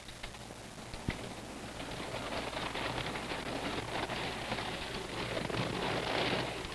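Roller coaster train rattling and rushing along its track, the clatter building louder and dropping off sharply near the end, with a single knock about a second in.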